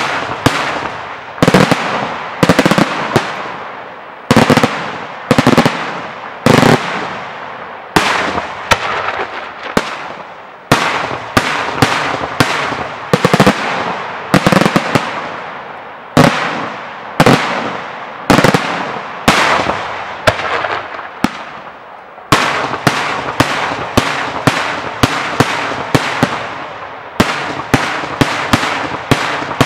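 Aerial firework shells of a daytime display bursting overhead in a long irregular series of loud bangs, each trailing off in an echo. From about two-thirds of the way through, the bangs come faster, several a second.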